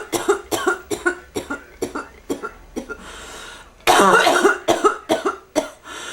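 A person with bronchitis in a coughing fit: runs of short, rapid coughs, a lull about halfway, then a long loud cough followed by another quick run of coughs.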